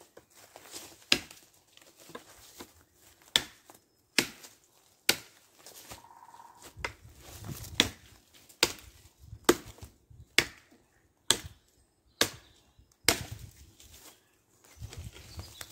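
Large heavy-bladed knife chopping a dead branch, sharp woody chops about once a second, a dozen or so strokes in all.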